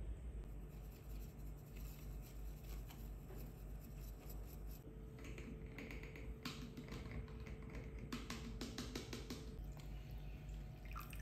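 Faint clicks and light taps of a glass bottle, funnel and glass coffee brewer being handled while coffee is poured, most frequent in the second half, with a thin steady tone for a few seconds in the middle.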